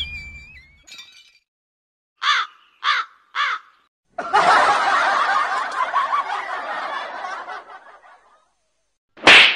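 Three short cawing calls about half a second apart, then about four seconds of laughter, then a brief loud burst just before the end.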